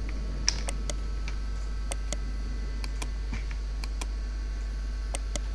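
Sharp clicks of a computer mouse as points are picked on screen, about a dozen, several in quick pairs, over a steady low electrical hum.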